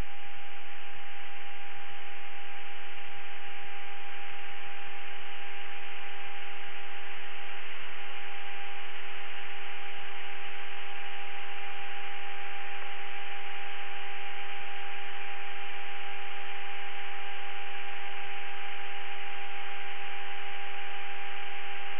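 Open radio channel with nobody talking: a steady, even hiss of static carrying a constant hum tone.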